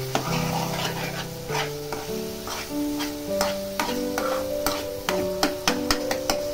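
A metal spoon stirring and scraping onion-tomato masala in a metal kadai, with sharp clicks of spoon on pan that come quicker in the second half, over the sizzle of the frying masala. Background music with held notes plays under it.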